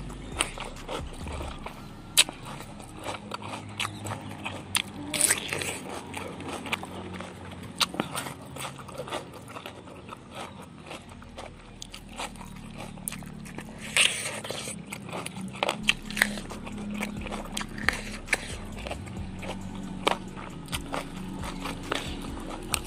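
Close-up chewing and crunching of raw cucumber and other raw vegetables, with many irregular sharp crunches.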